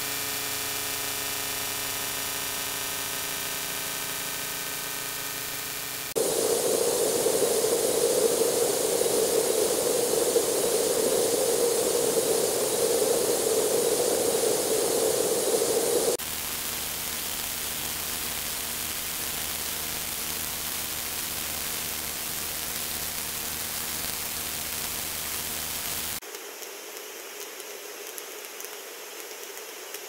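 Steady white-noise hiss that switches abruptly to a different noise sound three times, about six, sixteen and twenty-six seconds in. The first and third carry a faint steady hum of several tones under the hiss; the second, the loudest, has a strong mid-pitched rush; the last is thin, with no low end.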